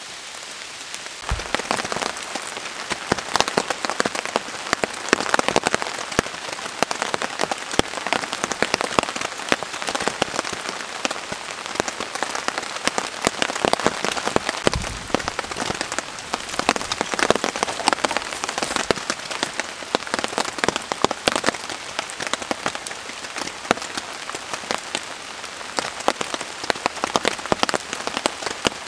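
Rain falling on a tarp shelter: a dense, irregular ticking of drops over a steady hiss, which gets louder about a second in and then holds steady.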